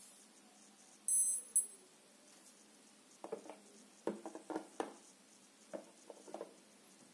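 Two short, high electronic beeps about a second in, then a scatter of light knocks and taps as a small plastic UV curing lamp is handled and shifted over a phone lying on a table.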